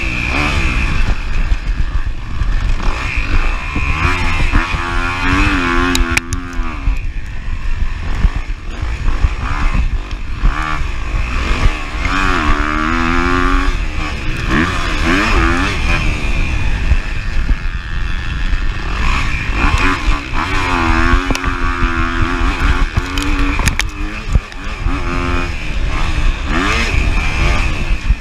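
2023 Kawasaki KX250F's single-cylinder four-stroke engine at racing speed, its pitch rising and falling over and over as the throttle opens and closes through the corners and straights. Heard close up from the rider's chest, with a few sharp knocks along the way.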